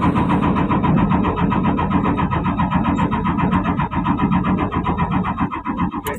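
Komatsu PC200-8 excavator's six-cylinder common-rail diesel cranking on the starter, a fast even beat of compression pulses with a steady starter whine, cutting off abruptly near the end. It is the engine that will not start on its own, with a rail pressure low fault logged.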